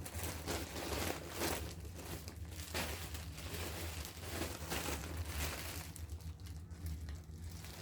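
Plastic packaging crinkling and rustling irregularly as clothing is handled, over a steady low hum.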